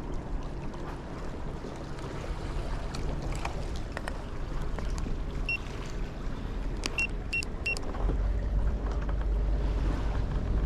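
Small boat's motor running steadily at low speed, its low rumble growing louder near the end, with a short electronic beep midway followed by three quick beeps.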